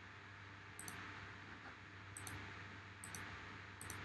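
A few faint computer mouse clicks, about four spread through a few seconds, over a low steady hum and hiss from the microphone.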